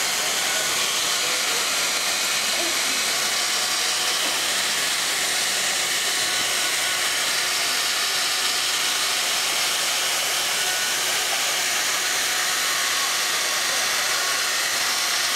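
Automatic hot-air PVC banner welder running, its hot-air blower giving a steady, even hiss as the machine travels along and heat-seals an overlapped banner seam.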